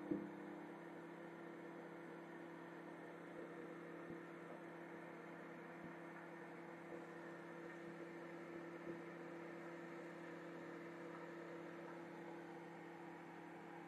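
Microwave oven running with a steady, faint hum.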